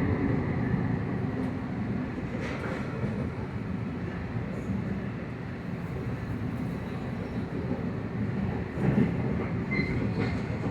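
A train running on the tracks: a steady low rumble, with a brief high squeal near the end.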